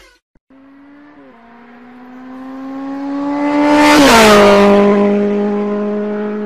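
A car passing at speed. Its engine note swells for about four seconds, with a rushing hiss at its loudest, then drops in pitch as it goes by and carries on steady.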